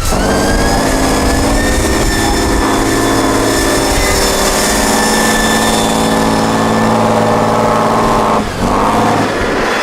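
Vehicle engine running steadily with a thin high whine over it; it breaks off briefly near the end and picks up again.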